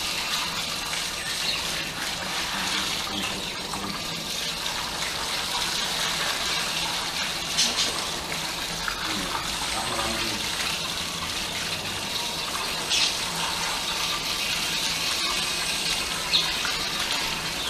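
Shower water spraying steadily over a German Shepherd's wet coat and splashing onto the concrete floor. Three short, sharper sounds stand out about halfway through and near the end.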